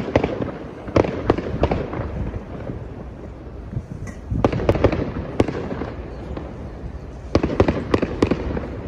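Aerial fireworks shells bursting, a run of sharp bangs and crackles that come in three clusters: near the start, just after the middle and near the end.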